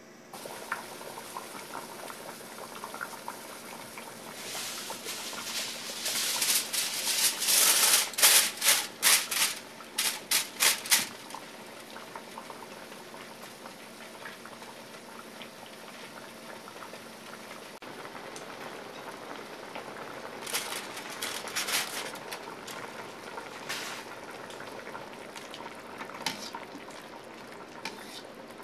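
A pot of tuna collar in soy-based broth simmering steadily over a gas flame. Aluminium foil crinkles loudly for several seconds as it is pressed over the pot, and there is more, lighter crinkling later.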